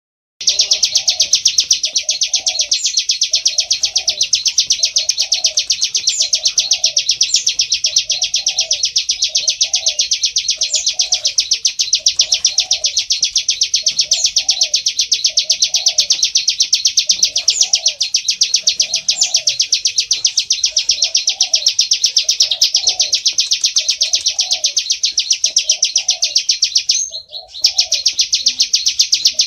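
Plain prinia (prenjak sawah) singing a continuous, very rapid buzzing trill, broken off briefly near the end. A fainter low note repeats a little more than once a second beneath it.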